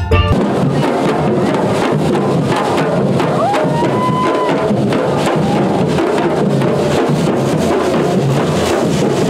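Marching street drum band playing a dense, steady beat, led by large bass drums struck with mallets.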